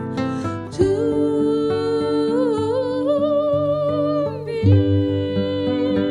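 A soprano sings a wordless line with vibrato over two classical guitars plucking an accompaniment. From about a second in she holds one long note that steps upward twice, breaks off a little past four seconds, then starts a new note.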